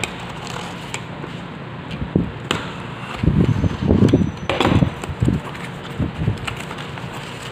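Utility knife slitting the packing tape on a cardboard parcel, then the cardboard flaps being pulled open: a cluster of short scraping and rustling noises in the middle, with a sharp click near the start of it.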